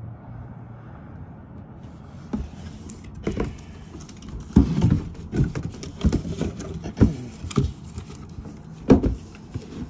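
A cardboard appliance box being handled and shifted: from about two seconds in, an irregular run of thumps, knocks and rustles, two of them louder than the rest.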